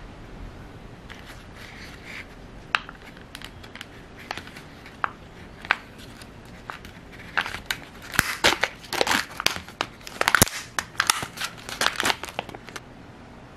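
Yukimi Daifuku ice-cream package being opened and handled. Scattered sharp ticks and rustles come first, then about five seconds of dense crinkling and crackling of the wrapping, which stops shortly before the end.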